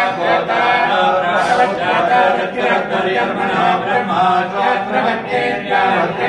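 A group of men chanting a scriptural recitation in unison, several voices together on a steady, unbroken chant.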